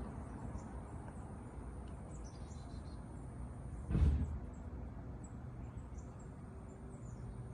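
Steady outdoor background noise with faint, scattered bird chirps, and a brief low sound about four seconds in.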